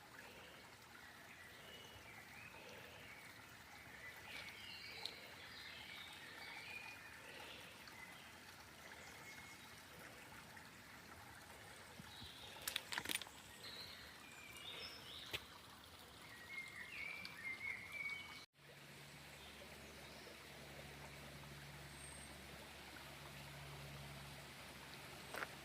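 Faint trickling stream, with small birds chirping through the first two-thirds and a couple of sharp clicks about halfway. After a brief dropout about 18 seconds in, a steady low hum joins the water.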